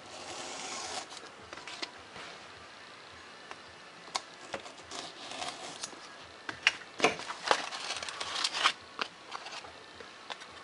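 Craft knife cutting paper-faced foam board along a plastic ruler: a rasping stroke near the start, then scattered sharp crackles and snaps, loudest about two-thirds of the way through.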